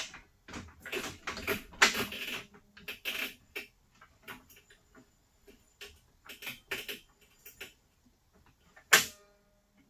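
Irregular clicks, knocks and rattles of metal drywall hoist parts being handled and fitted together, with one loud metallic clank about nine seconds in that rings briefly.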